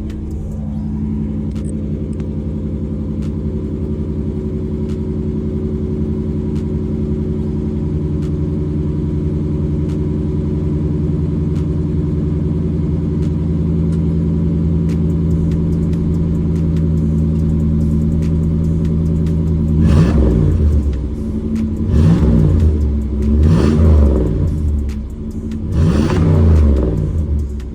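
1989 Chevy Caprice 305 V8 idling steadily through a new Flowmaster 44 Series muffler, with the catalytic converter still in place. Near the end it is revved four times in quick succession, each rev rising and falling.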